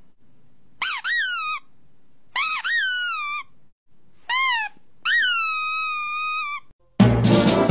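Four high-pitched squeaks made with a man's pursed lips, each rising and then falling in pitch; the last one is long and held. Music comes in near the end.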